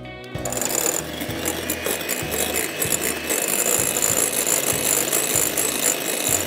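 Electric hand mixer switched on about half a second in, running steadily as its twin beaters whip egg whites in a glass bowl.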